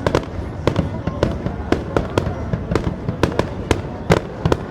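Fireworks display: aerial shells bursting in rapid succession, about two or three sharp bangs a second over a continuous low rumble.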